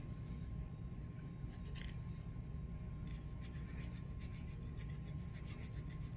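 A small nail file scraping back and forth along the edge of a cross-stitch keychain piece to smooth off its rough, pokey corners. It makes a few strokes, then about three seconds in settles into a steady rhythm of about four strokes a second.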